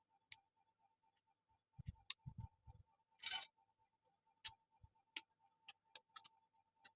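Quiet eating noises: scattered sharp clicks and smacks, a few low thumps about two seconds in, and one brief rustling burst near the middle. Under them runs a faint, steady ticking of about five beats a second.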